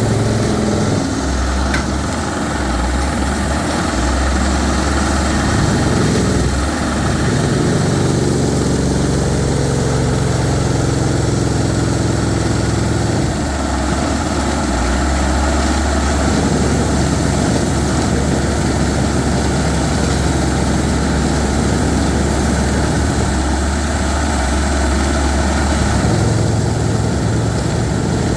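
Rock core-drilling machine running while it bores into hard rock: a loud, steady mechanical din over a deep engine hum. The hum shifts a few times.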